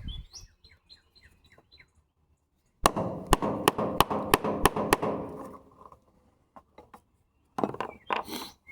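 Birds chirp briefly at the start. Then, about three seconds in, a power cord is cut through with a hand cutting tool: a run of about seven sharp clicks over crunching and rustling that lasts a couple of seconds, followed by a shorter burst of handling noise near the end.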